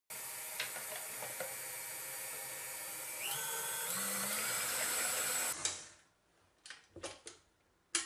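KitchenAid stand mixer with its wire whisk whipping cream: the motor runs steadily, then its whine rises and grows louder about three seconds in as it speeds up. It stops about six seconds in, followed by a few light clinks.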